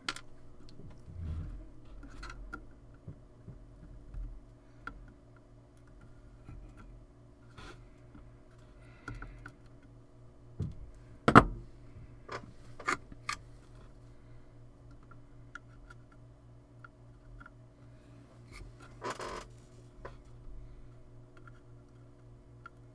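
Scattered clicks, taps and a short scrape of small tools and parts being handled on a workbench during capacitor rework on a circuit board. The loudest is a sharp click about 11 seconds in. A steady low electrical hum runs underneath.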